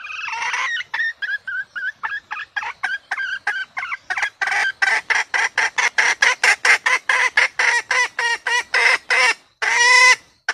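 Red junglefowl hen calling: a quick series of short clucks that comes faster as it goes on, ending in two longer, louder calls near the end.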